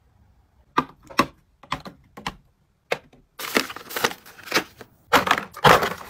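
Several sharp separate taps and clicks, then a run of crinkling as foil sheet-mask sachets are handled and packed into a plastic basket.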